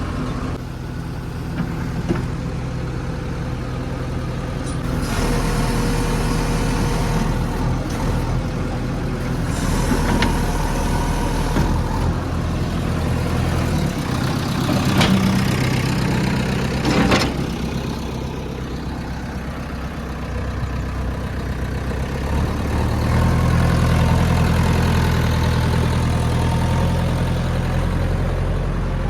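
JCB 3DX backhoe loader's diesel engine running steadily, its note stepping up under load at times while loading mud, with two stretches of hiss and two sharp knocks in the middle.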